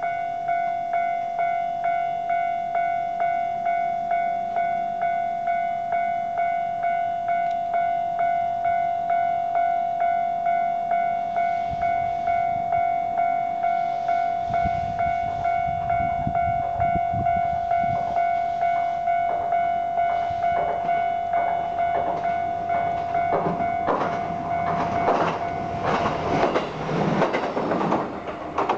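Level-crossing warning bell ringing at a steady beat of about two strokes a second while a JR Kyushu KiHa 220 single-car diesel railcar approaches. A low rumble from the railcar builds from about halfway. The clatter of its wheels over the rail joints grows loud near the end as it runs past the crossing.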